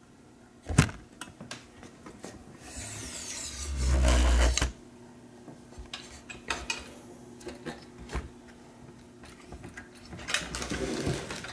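Handling noise from an aluminium TV antenna: light metal clicks and knocks as its rods and brackets are turned in the hands. About three seconds in comes a longer rubbing rustle with a heavy low rumble, the loudest sound here, and a shorter rustle comes near the end.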